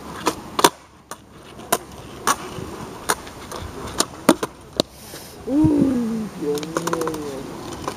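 Skateboard clacking: about a dozen sharp clacks of the tail popping and the deck slapping down on the ground as the rider tries a flip trick and the board lands without him. In the second half a person's voice gives a drawn-out exclamation that slides down and then up in pitch.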